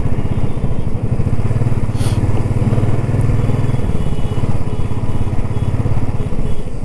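Royal Enfield Classic 350's single-cylinder engine running steadily at low road speed, heard from the saddle. Its exhaust pulses ease a little about four seconds in as the throttle comes back.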